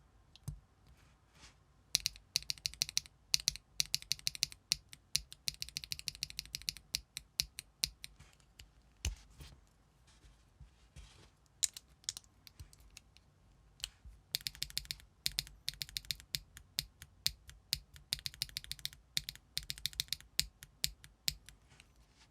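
Mechanical keyboard with raw switches, an aluminium plate and ABS double-shot keycaps being typed on. The keystrokes come in fast runs of clacks about two seconds in, around the middle and near the end, with slower single key presses between them.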